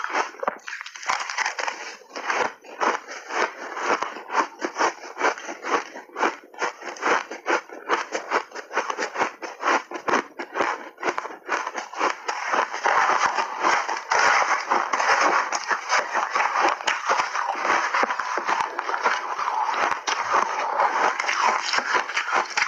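Refrozen shaved ice crunching and crackling as it is bitten and chewed in big bites, a dense run of irregular cracks that grows thicker and louder about halfway through.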